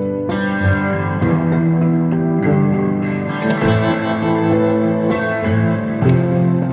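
Background music led by a plucked guitar, with notes that change every second or so.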